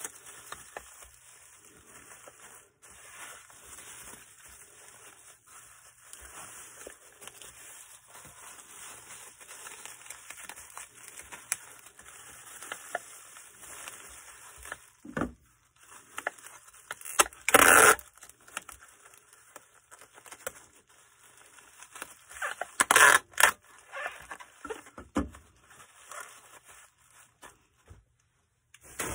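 Packing sounds: packaging material being handled and crinkled, with scattered scrapes and taps and two louder tearing noises, one a little past halfway and one about three-quarters through.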